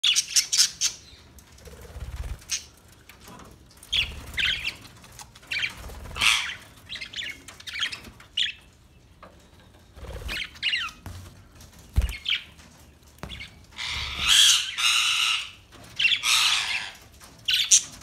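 A flock of budgerigars chirping and squawking, with short high chirps and harsher, longer chattering calls overlapping. A few short low thumps come between the calls.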